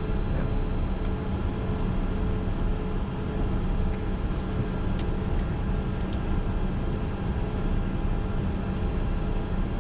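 Steady cockpit noise of a Bombardier Challenger 605 taxiing with its two General Electric CF34 turbofans at idle: an even low rumble and hum with a couple of steady tones running through it.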